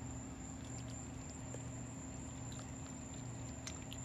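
Steady low background hum with a few faint ticks.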